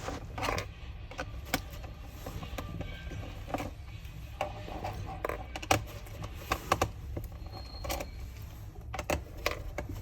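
Irregular small clicks and ticks of a screwdriver working the screws in a laptop's plastic base cover, with screws being lifted out, over a steady low hum.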